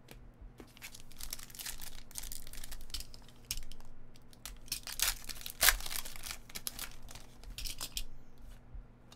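Foil trading-card pack wrapper being torn open and crinkled by hand: a run of crackling rustles with one sharp crackle a little past the middle.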